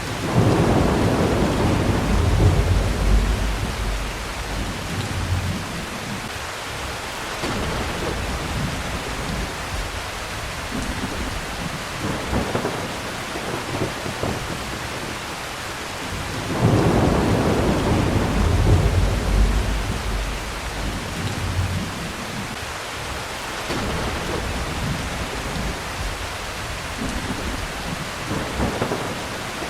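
Heavy rain falling steadily, with thunder rumbling twice, just after the start and again about halfway, each roll lasting several seconds before fading, and fainter rumbles in between.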